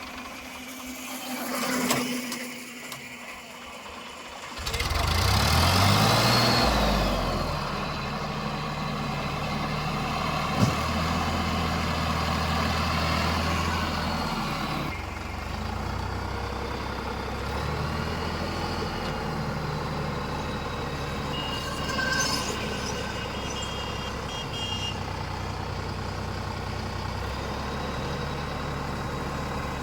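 Heavy diesel engine revving up about four seconds in, then running on under varying load, its pitch shifting up and down, with a brief high beeping a little past two-thirds of the way through.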